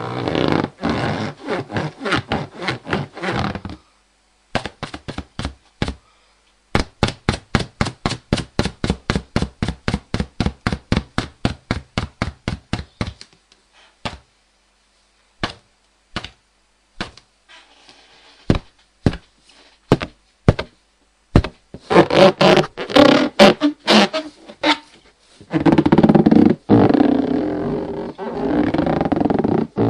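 Rubber balloon being rubbed, squeaking in runs of quick strokes, about three to four a second, with short pauses between runs; near the end the rubbing turns into longer, denser squeaks.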